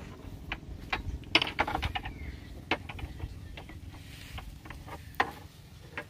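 Pumpboat engine, just started, running at a steady low drone. Irregular sharp metallic clicks and knocks sound over it, a cluster about a second in and a sharper one near five seconds.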